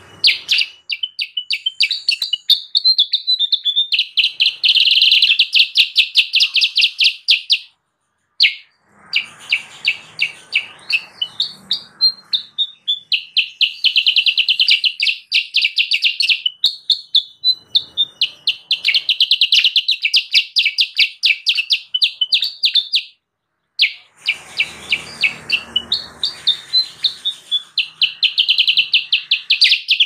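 Kutilang sutra, a bulbul, calling in long bouts of rapid, chattering notes repeated several times a second. The recording drops out briefly twice.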